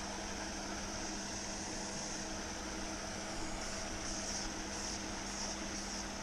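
Steady hum of a pond fountain aerator's pump with the hiss of its spray falling back on the water.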